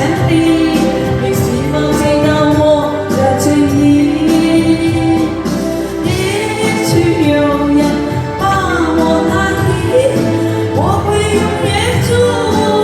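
A voice singing a Chinese pop ballad over backing music, with long held notes that slide in pitch.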